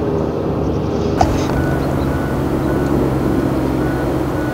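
Heavy diesel earthmoving machinery running steadily, with one sharp clank about a second in and faint short beeps recurring after it.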